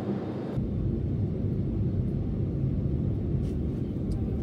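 Steady low rumble of a jet airliner cabin in flight: engine and airflow noise. About half a second in it turns deeper, with the higher hiss dropping away.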